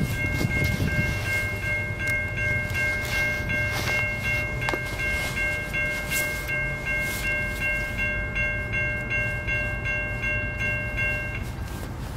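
Railroad grade-crossing bell ringing fast and evenly, about three or four strokes a second, over a low rumble; it stops abruptly near the end.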